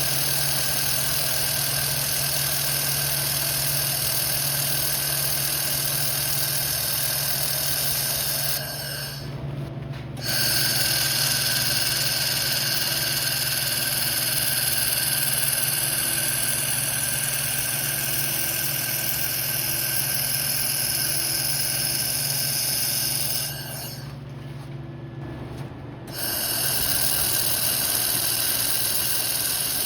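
Handheld fibre laser welder firing on steel with a loud, steady hiss over a constant machine hum. The hiss stops twice, about nine seconds in and again near the end, when the trigger is released between welds, while the hum runs on.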